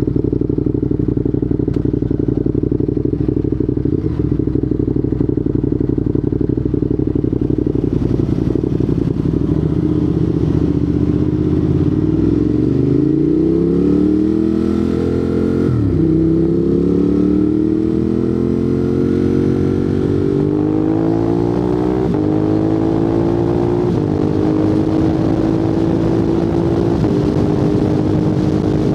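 Ducati Monster 821's 821 cc L-twin engine through a Termignoni exhaust, running steadily, then revving up under acceleration. About halfway the revs drop sharply on a quick-shifter upshift and climb again, with smaller steps later on.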